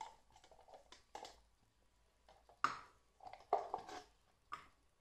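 Quiet handling noises: a few short knocks and scrapes, the sharpest about two and a half seconds in, as a jar of coconut oil is opened and handled over a frying pan.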